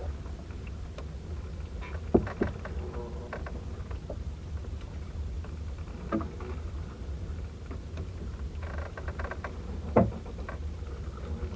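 Small boat's engine running steadily with a low rumble, with a few sharp knocks scattered through it, the loudest about two seconds in and near the end.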